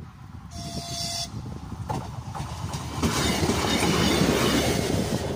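ČD class 814 Regionova diesel railcar giving a short horn blast about half a second in, then passing close by, the noise of its engine and wheels loudest from about three seconds in.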